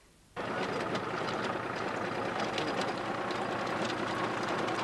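Motor sledge's engine running steadily with rapid clicking from its caterpillar tracks. It starts abruptly about half a second in.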